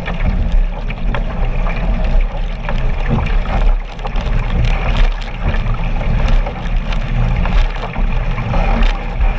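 Water splashing and slapping right at the camera as kayaks are paddled, with wind rumbling on the microphone. A paddle blade splashes beside the camera about the start, and short splashes recur throughout.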